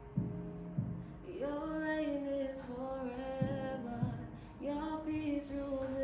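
A young woman sings a slow worship song solo, holding long notes in two phrases; the second phrase starts just past halfway. Under the voice, low thumps come in pairs on a slow, regular beat.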